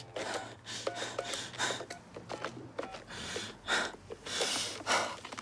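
An injured man's laboured, gasping breaths, with a few short keypad beeps from a desk telephone being dialled in the first second or so.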